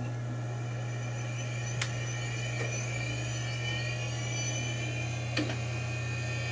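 Power Macintosh 7500 running just after power-on: a steady whir from its fan and drive over a low hum, with faint high whines creeping up in pitch. Two soft clicks come about two seconds in and about five seconds in.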